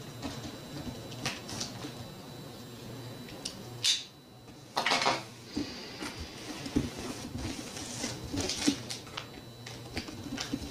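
Hands working at a cardboard shipping box's taped top: scattered scrapes, rustles and taps on cardboard and packing tape, with a louder rasp about five seconds in.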